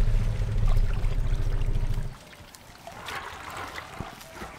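African elephant giving a deep, low rumble for about two seconds, which stops abruptly. Then comes soft trickling and splashing of water in mud, with one dull thump near the end.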